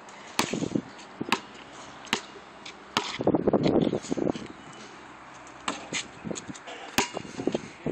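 A basketball bouncing on an asphalt driveway: sharp single thuds about once a second, with a busier stretch about three to four seconds in.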